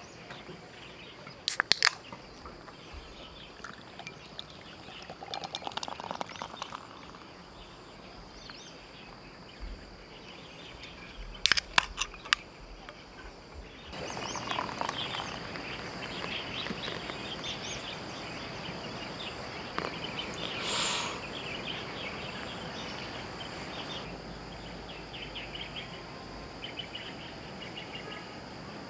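Sharp clicks of aluminium beer cans being handled, about two seconds and twelve seconds in, then dark beer poured from a can into a glass, fizzing. Under it runs a steady high insect drone with bird chirps.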